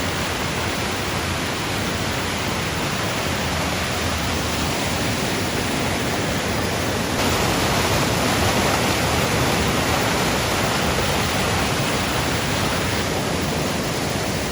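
The 60-metre Black Spout waterfall rushing in a loud, steady wash of falling and splashing water. It grows slightly louder and brighter about halfway through.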